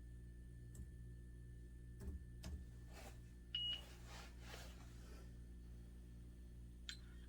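A single short, high electronic beep about three and a half seconds in, with faint clicks and soft handling rustle around it over a steady low hum.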